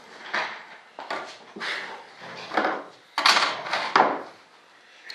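Hand tools and a metal straightedge being picked up and set down on a workbench: a string of about six knocks and clatters, the loudest a quick cluster about three to four seconds in.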